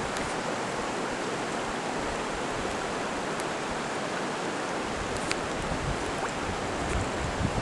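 Steady rushing of a flowing river, with low wind gusts on the microphone near the end.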